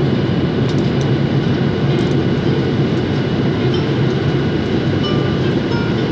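Steady cabin rumble of a Boeing 737-800 descending for landing: engine and airflow noise heard from a window seat over the wing, with a faint high steady whine above it.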